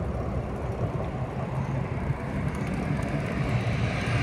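Steady low rumble of motor traffic on a road.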